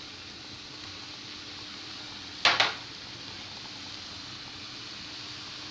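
Chopped onion and green pepper sizzling steadily in hot oil in a frying pan, with one short, sharp clatter against the pan about halfway through.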